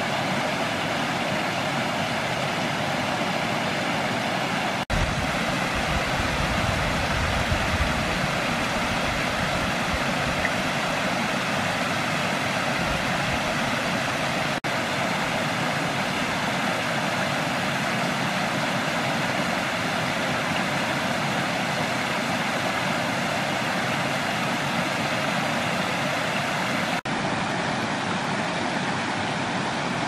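Rushing water of a small creek waterfall pouring over rocks: a steady, dense rush. A low rumble joins it for a few seconds about five seconds in.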